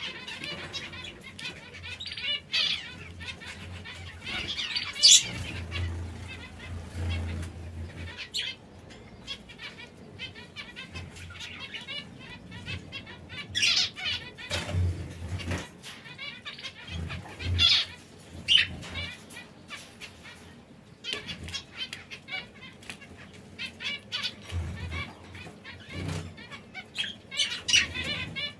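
Canaries chirping on and off, with short bursts of wing flapping.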